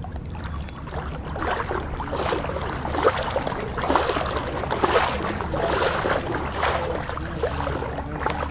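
Floodwater splashing and sloshing in irregular bursts over a low steady rumble.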